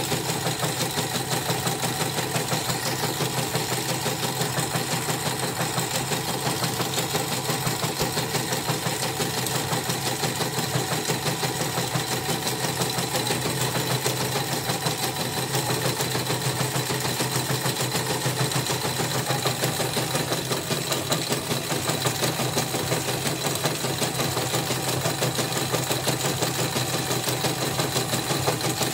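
CNY portable embroidery machine stitching steadily at speed, a fast even rhythm of needle strokes. It still runs somewhat rough, a roughness the technician traces to the rotary hook, whose bobbin case is notched from needle strikes.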